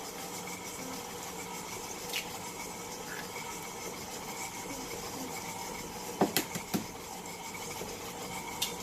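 Electric mixer running steadily at low speed, beating eggs into cake batter, with a few sharp clicks and taps about 2 s in, around 6 to 7 s in, and near the end.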